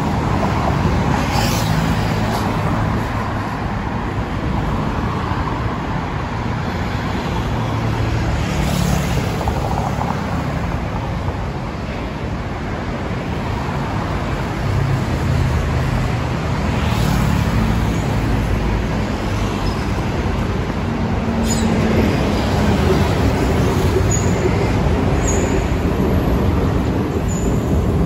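Steady heavy city road traffic: a continuous rumble of passing cars and other motor vehicles, with a few brief swells of passing-vehicle noise and some short high squeaks near the end.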